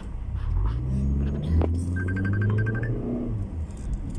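Car engine heard from inside the cabin, its note rising as the car speeds up and then holding steady. A phone trills in short, quick pulses about two seconds in.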